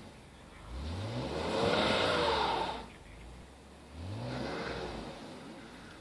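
A car stuck in deep snow, its engine revving twice as the driver tries to get out, with the wheels spinning and whining in the snow. The first rev comes about a second in and lasts about two seconds; the second comes about four seconds in and is shorter. The engine pitch climbs at the start of each.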